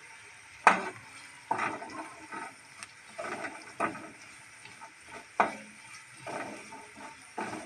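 A wooden spatula stirring and scraping chopped onions around a non-stick kadai as they sauté in oil, in uneven strokes about once a second, over a faint sizzle.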